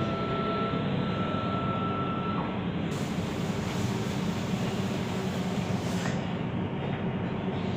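Steady low machinery hum of shop equipment, with a thin high whine that fades after the first two seconds or so. A band of hiss comes in for about three seconds in the middle.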